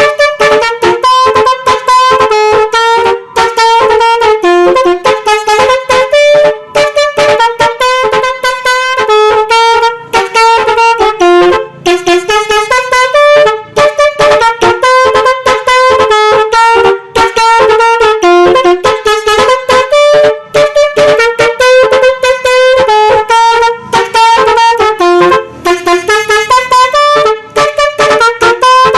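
Basuri musical bus horn, a multi-tone 'telolet' air horn, playing a fast tune of short, brassy notes one after another, with only brief breaks between phrases.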